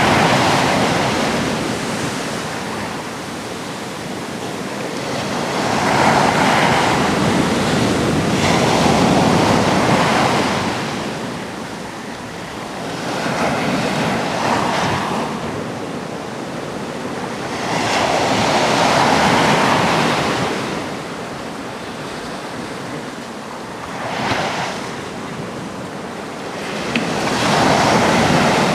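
Atlantic sea waves breaking on the shore. The surf comes in surges every four to six seconds, each building to a loud wash and falling away.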